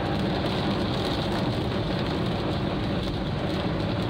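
Steady cabin noise of a Volkswagen Gol driving on a wet highway in the rain: the engine running and the tyres on the wet road, with an even low rumble throughout.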